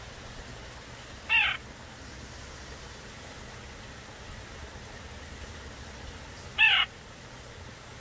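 White-breasted nuthatch giving two short calls, about five seconds apart, over a steady low background hum.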